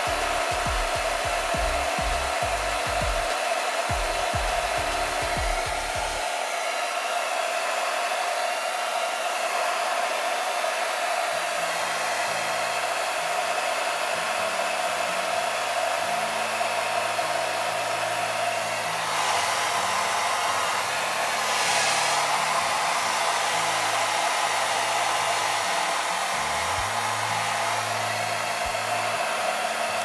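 Xiaomi Mijia Mi Ionic hair dryer (CMJ01LX3) running steadily, a rush of blown air with a steady motor whine. It is set to its alternating hot-and-cold air mode.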